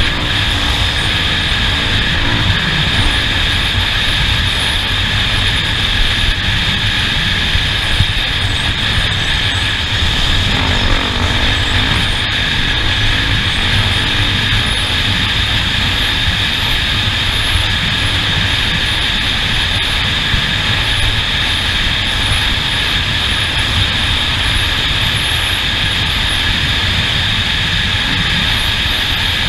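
A steady, unchanging motor hum with a low rumble underneath, holding one pitch throughout.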